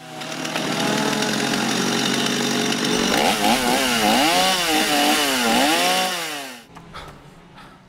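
Gas chainsaw revved up and cutting into a log. It runs steadily at first, then its engine pitch swells and sags several times as the chain bites into the wood, and it stops abruptly near the end.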